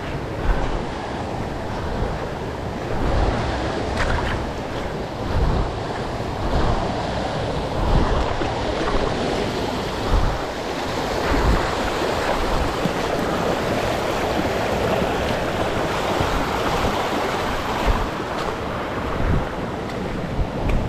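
River water rushing over rocks in shallow rapids, a steady rush, with irregular low rumbles of wind buffeting the microphone.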